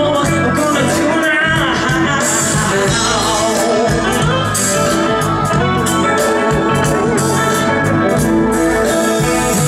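Live band playing a pop song at full level: a bending melody line rides over steady bass and drums, with some voice mixed in.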